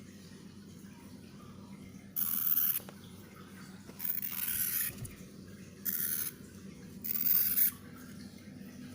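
Frightened baby hamster making four short hissing noises, each lasting under a second, with pauses between them.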